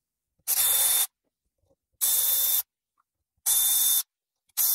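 Milwaukee Fuel cordless ratchet running in four short bursts of about half a second each, roughly a second and a half apart, spinning out the bolts of a BMW N42 VANOS unit.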